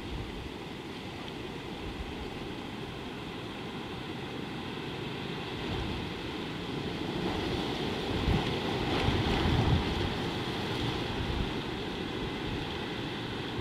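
Wind buffeting an outdoor microphone as a steady rush, swelling in stronger gusts from about seven to eleven seconds in.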